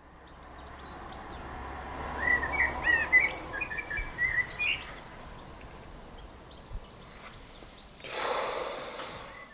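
Birds chirping, with a flurry of quick short chirps in the middle over a steady background hiss; near the end a rush of noise swells and fades over about a second.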